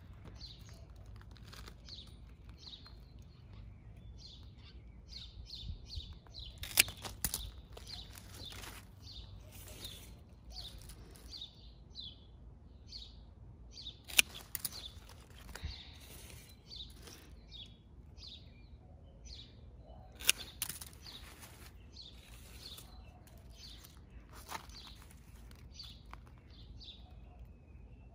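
Small birds chirping on and off throughout, with a few sharp snips of hand pruning shears cutting through leafy plant stems, the loudest sounds here.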